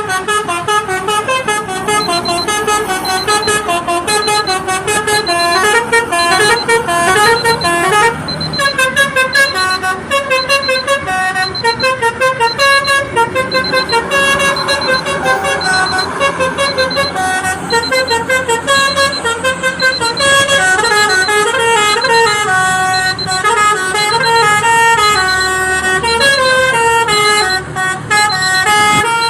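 Telolet basuri musical horn on a truck playing a melody: a long run of loud horn notes stepping up and down in pitch without a break.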